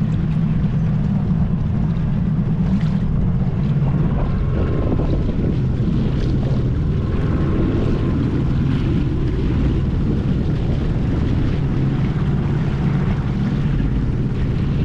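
A boat's motor running steadily at a constant speed, with wind buffeting the microphone.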